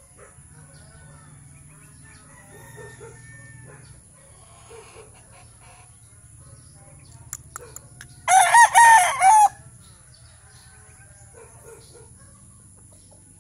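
A rooster crows once, loud and close, about eight seconds in: a call of a little over a second in a few bending, rising-and-falling notes. Faint clucks and chirps come before it, over a steady low hum.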